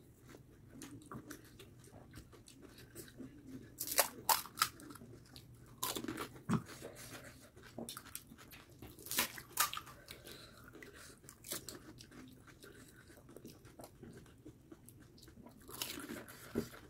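Crisp fried puri (fuchka) shells cracking and crunching now and then as they are poked open and bitten, with chewing between.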